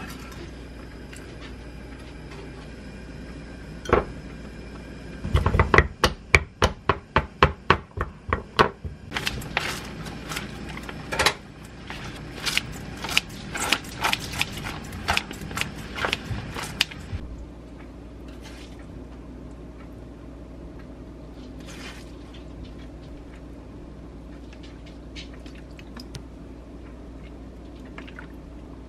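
A kitchen knife chopping onion on a wooden cutting board: a fast run of sharp knocks, about four or five a second, starting about five seconds in. This is followed by less regular cutting strokes as kitchen scissors snip salad greens in a paper bowl, then a quieter stretch with only a few light clicks.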